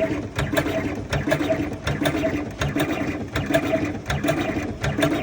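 Electric cigarette tobacco filling machine running, its motor and mechanism cycling in a steady repeating rhythm of whirring and clicking, roughly two cycles a second.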